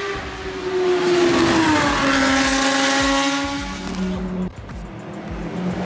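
Car engines accelerating hard down a racetrack straight. One car passes close by about a second in, its engine note dropping in pitch as it goes past, and another engine note rises near the end.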